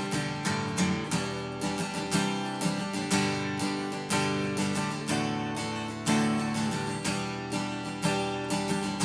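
Chinese-made replica of a Gibson J200 jumbo steel-string acoustic guitar, strummed in chords at a steady rhythm of about two strums a second. The owner hears a slight rattle on the G and higher strings, which he puts down to the saddle.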